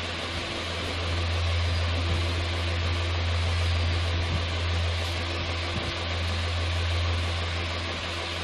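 Steady low hum under an even hiss, with no clear events standing out.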